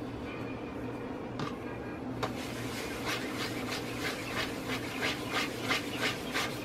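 Dough being rolled into a ball under the palm on a floured countertop: a soft, rhythmic rubbing of about three strokes a second that starts about two seconds in.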